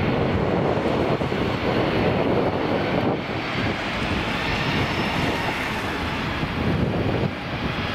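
Embraer regional jet's turbofan engines running at taxi power as the jet rolls past: a steady rushing noise with a faint high whine drifting through the middle.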